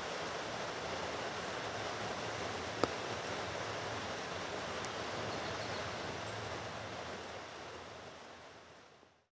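Steady hiss of background noise with a single sharp click about three seconds in, fading out near the end.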